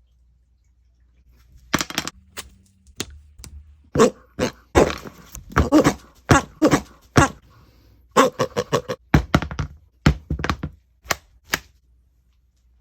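An irregular series of sharp knocks and taps, about two dozen, beginning about two seconds in and thinning out near the end.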